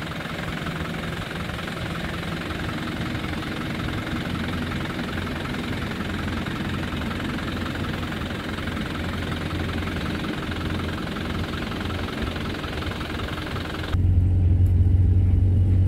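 Volkswagen Kombi camper van's engine running steadily as the van drives. About fourteen seconds in, the sound cuts abruptly to a louder, deeper steady drone.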